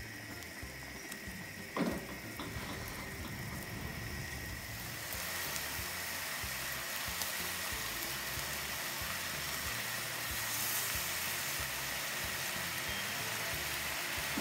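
Spiced cooking liquid bubbling and sizzling in a pan under a whole steam-roasted chicken on high heat, boiling off the excess water; the hiss grows louder about five seconds in and then holds steady. A single knock about two seconds in.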